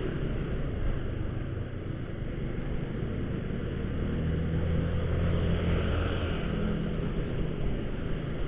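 Honda motorcycle engine running as it rides along, with tyre and wind noise. The engine note grows louder from about three seconds in and eases off again near seven seconds.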